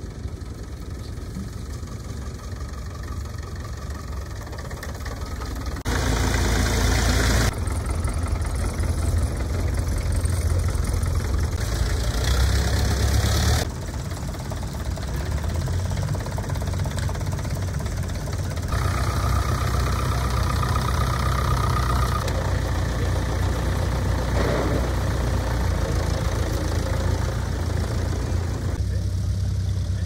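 Vintage Ferguson tractor engines running steadily at low revs, with two louder, harsher stretches about six and twelve seconds in.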